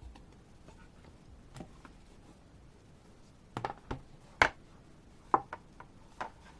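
Clicks and knocks from an album's CD and its packaging being handled: a few faint taps, then a cluster of sharper clicks from about halfway in, the loudest a little past the middle.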